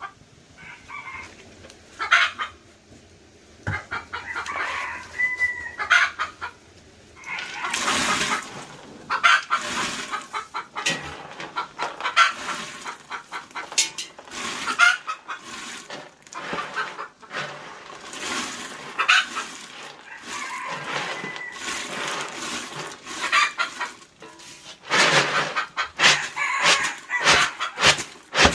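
Chickens clucking and a rooster crowing, mixed with repeated sharp knocks and rustling that are loudest near the end.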